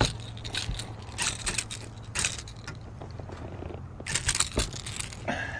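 Clattering and rustling as a freshly caught bass and the fishing tackle are handled, in a few short bursts of knocks and scrapes over a steady low hum.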